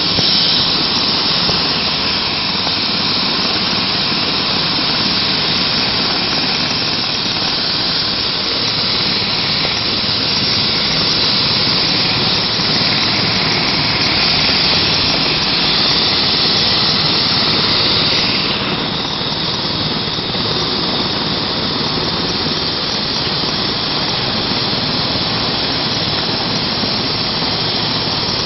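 Medical helicopter running on the ground, its turbine engines and rotor giving a steady high whine and hiss. About two-thirds of the way through, the whine eases and the sound drops slightly.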